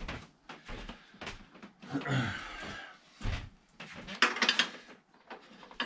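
Workshop handling noises: scattered knocks and clinks of metal tools and parts being moved, with a short scraping rustle about two seconds in and a brief rattling clatter just after four seconds.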